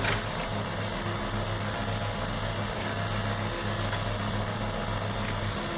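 Kubota U35-4 mini excavator's diesel engine running at a steady speed.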